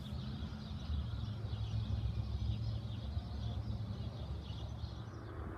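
HO-scale model freight train rolling along its track, a steady low rumble of wheels and motor, with faint quick high chirps over it.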